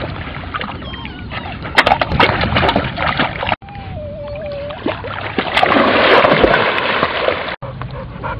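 German Shorthaired Pointer puppies swimming and splashing through water, with a few sharp splashes about two seconds in and loud churning water in the second half. A puppy gives a brief wavering whine near the middle.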